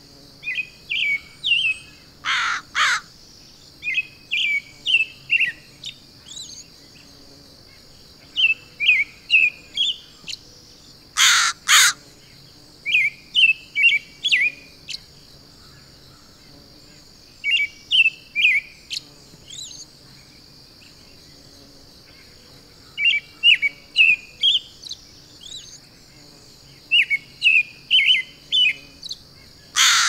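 A crow giving loud, harsh caws in pairs, three times, over another songbird repeating a short phrase of quick chirps every few seconds. A steady high hiss runs underneath.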